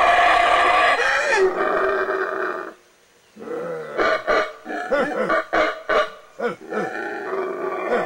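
Yucatán black howler monkeys howling: a long, loud roaring call breaks off about three seconds in, followed by a quick series of short separate calls, and the long roar picks up again near the end.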